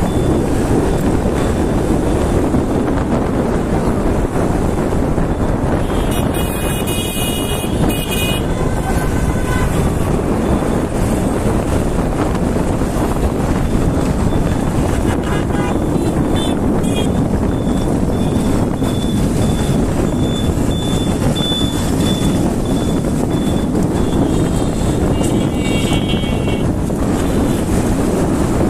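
Wind rushing over the phone's microphone on a moving motorcycle, a loud steady noise over the bike's running and road noise. Vehicle horns toot briefly about six seconds in and again near the end.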